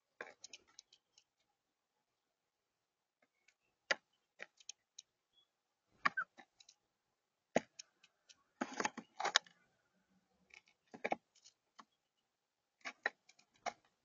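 Blue jays pecking at mixed seed and peanut bits on a tabletop, making irregular sharp clicks and taps, some in quick clusters of several.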